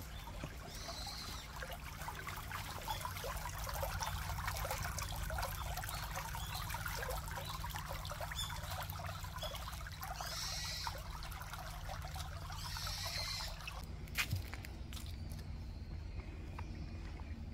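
Shallow spring-fed stream trickling over stones and leaves, a steady bubbling that fades out after about fourteen seconds, leaving a quieter background with a few faint clicks.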